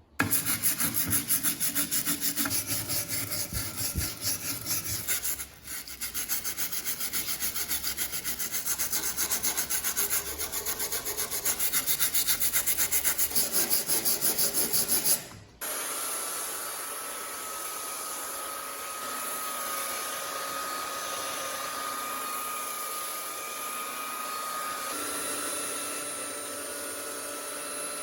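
A hand tool working wood, rubbing back and forth in fast, even strokes, several a second. About halfway through the strokes stop abruptly and a steadier, quieter sound with a faint high whine takes over.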